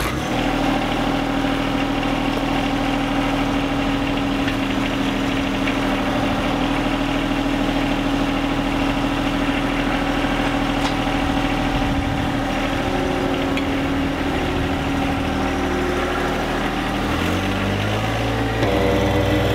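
John Deere 1025R's three-cylinder diesel engine idling steadily.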